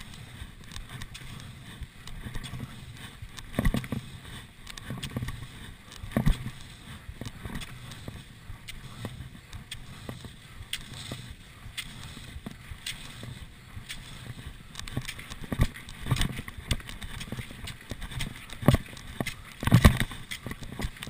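Classic cross-country skiing: skis swishing and sliding in groomed tracks, with repeated pole plants crunching into the snow in an uneven rhythm. The knocks grow louder and come closer together near the end.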